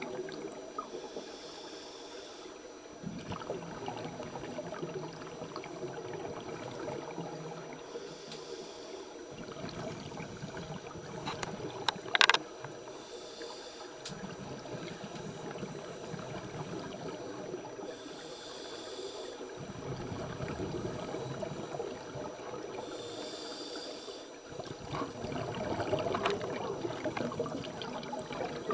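Scuba regulator breathing heard underwater: exhaled bubbles rush out in bursts of about a second and a half, about every five seconds, with duller rumbling in between. One sharp click about twelve seconds in.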